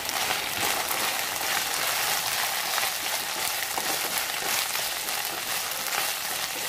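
Sliced arbi (colocasia) and green chillies sizzling in hot oil in a kadhai while stirred with a wooden spatula: a steady hiss with fine crackling throughout.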